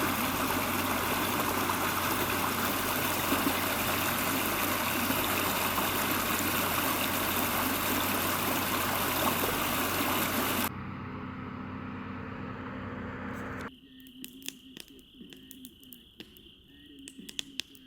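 Steady rushing water for about eleven seconds, then an abrupt cut to a quieter scene. About fourteen seconds in, a steady high insect chirring, like crickets at night, begins, with scattered sharp clicks.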